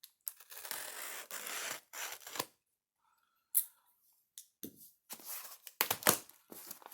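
Box cutter slicing through a sealed cardboard package and its packing tape in several scraping strokes, with a sharp click in the middle and a couple of sharp knocks near the end.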